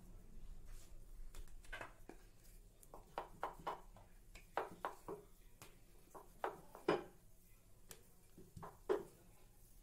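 Wooden rolling pin rolling out a ball of dough on a marble rolling board: quiet, irregular knocks and taps as the pin meets the stone, starting a few seconds in after a soft rustle of the dough being pressed flat by hand.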